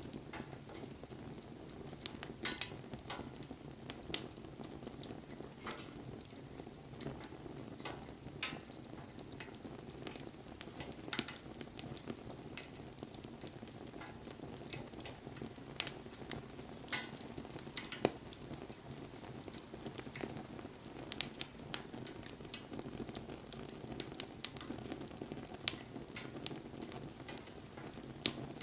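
Wood bonfire crackling: frequent sharp pops and snaps scattered over a steady low rush of burning.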